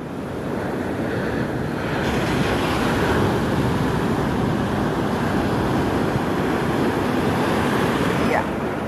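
Surf and wind rushing over the microphone aboard a small outrigger fishing boat in heavy waves, with the boat's motor running underneath. The noise swells up over the first couple of seconds and then holds steady.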